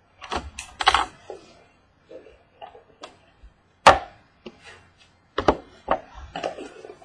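A trading-card box being opened and its contents handled by hand: a string of sharp clicks, taps and knocks of cardboard and plastic with short rustles between them, the loudest snap about four seconds in.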